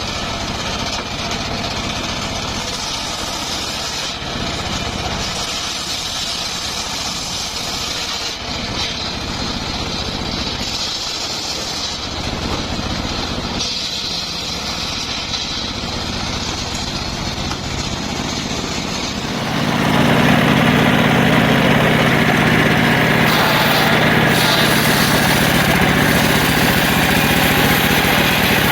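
Circular saw running steadily, turning markedly louder and harsher about twenty seconds in.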